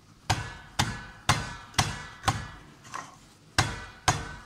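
A milk carton packed with hot homemade kaşar cheese is knocked down on a kitchen countertop again and again, about eight sharp knocks at roughly two a second. The knocking settles the soft cheese and drives out air pockets in the carton mould.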